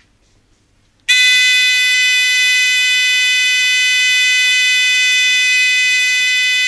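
Electronic buzzer of a breadboard alarm circuit sounding one steady, buzzy alarm tone. It switches on suddenly about a second in and cuts off abruptly at the end, the alarm started and stopped with the circuit's push buttons.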